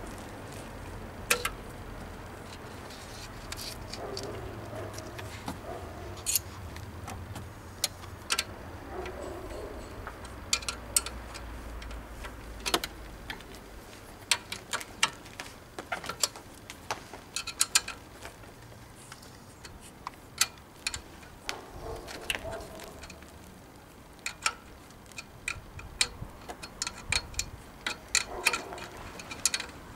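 Irregular sharp metallic clicks and clinks of wrenches and sockets working the alternator's mounting bolts, some coming in quick runs.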